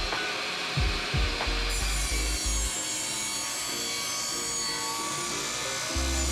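A saw cutting through cedar fence board, a steady rasping cut of the wood, with background music and a bass beat underneath.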